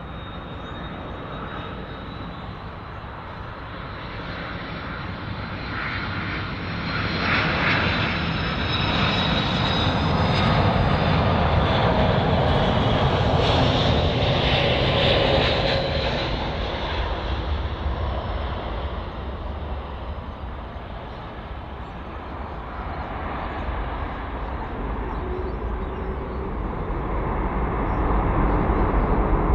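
Jet airliner passing close by. Its engine noise swells over several seconds, stays loud with a high whine that falls in pitch as it passes, then fades, and a low rumble builds again near the end.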